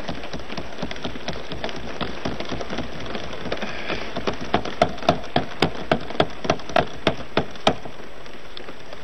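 Parliament members thumping their wooden desks in approval, a dense patter of many hands. About halfway through, a slower run of louder single thumps, about three a second, comes through and stops near the end.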